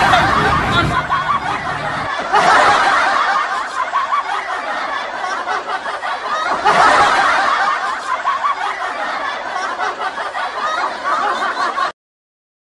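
Several people laughing and snickering, with louder surges of laughter about two and seven seconds in; it cuts off abruptly near the end.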